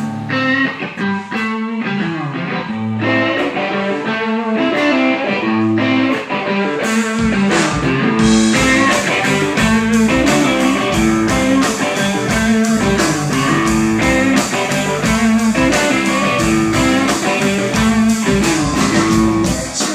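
Rock/blues music led by guitar; a fuller band with a steady beat and bass comes in about seven seconds in.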